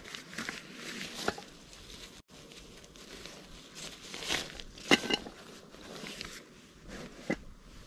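Rustling and crinkling of a fabric stuff sack being pulled from a backpack and opened by hand, with a few sharp clicks, the loudest about five seconds in.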